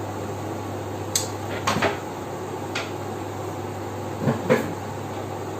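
A few light knocks and clatters of kitchenware being handled, over a steady low hum.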